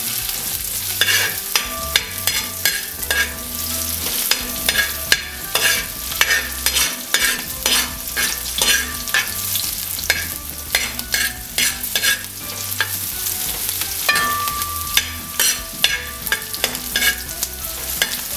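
Metal spoon scraping and knocking against a metal wok in repeated, irregular strokes while sliced ginger, garlic and green chillies fry in hot coconut oil, under a steady sizzle.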